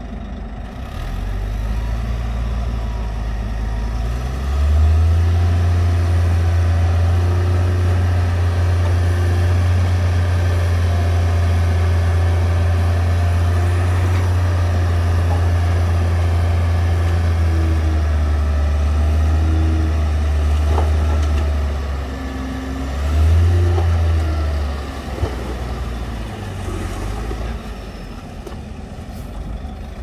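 Dump truck diesel engine revving up about four seconds in and held at a steady high speed to drive the hydraulic hoist that tips the loaded bed. It eases off, gives one short second rev, then settles back toward idle.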